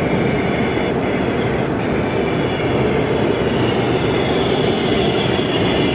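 O gauge model train running along the track: a steady rolling rumble with no breaks.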